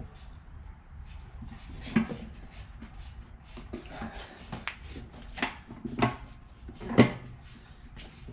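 Irregular knocks and clunks of hand work on a motorcycle wheel and tyre, a few seconds apart, the sharpest about seven seconds in.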